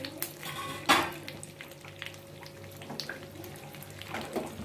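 Bay leaves and kasuri methi (dried fenugreek leaves) frying gently in hot ghee in a small tempering pan, with scattered small crackles and a spatula scraping and knocking against the pan. The knock is loudest, about a second in.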